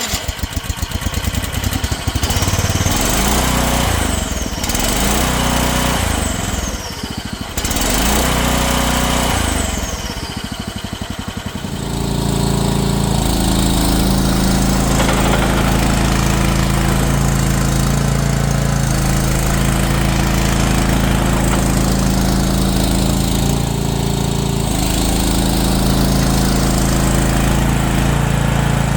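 Skid steer loader's engine running, its speed going up and down unevenly for about the first twelve seconds, then settling into a steady run.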